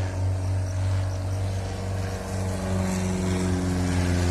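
An engine running with a steady low drone that grows louder near the end.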